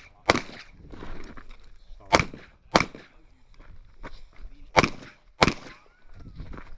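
Airsoft pistol shots: about six sharp cracks, mostly in pairs about half a second apart, with quieter pauses between the pairs.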